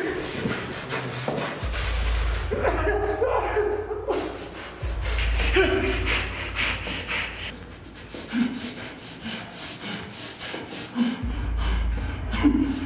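A gagged man's muffled groans and breaths come several times as a plastic bag is held over his head, with the plastic rustling in the struggle. A low hum comes and goes underneath.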